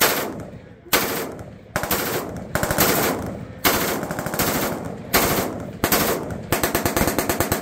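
HK33K rifle in 5.56 mm firing: two single shots about a second apart, then fast strings of shots in quick succession, the closest ones very evenly spaced at roughly a dozen a second.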